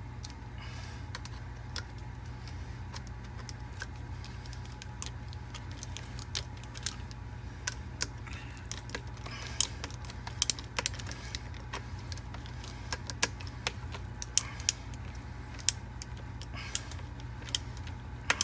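Sump pump's plumbing fittings being handled and put back on: irregular sharp clicks and clinks, more frequent in the second half, over a steady low hum.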